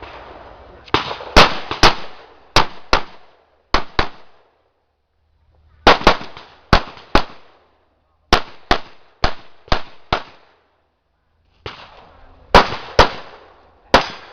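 Handgun shots fired in quick pairs and short strings during an IPSC practical-shooting stage, about twenty shots in all. They fall in four bursts, separated by pauses of one to two seconds while the shooter moves between positions.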